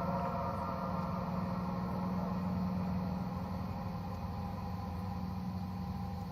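A steady, low droning hum with several held higher tones above it, slowly fading in the second half: the kind of unexplained sky sound the recording presents as strange.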